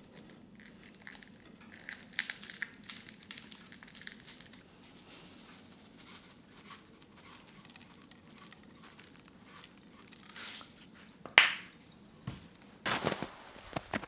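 Faint crinkling and rustling handling sounds with scattered light ticks. In the second half come a few sharper clicks and knocks, the loudest a single sharp crack near the middle of that stretch.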